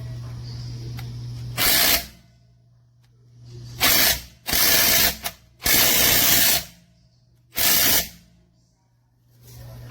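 Cordless impact wrench run in six short trigger bursts of hammering, each under a second, with quiet gaps between them.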